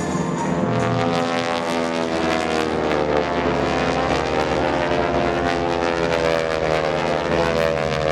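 North American T-6 Texan's nine-cylinder Pratt & Whitney R-1340 radial engine and propeller running at high power on an aerobatic pass. The pitch rises a little, then falls slowly as the aircraft goes by.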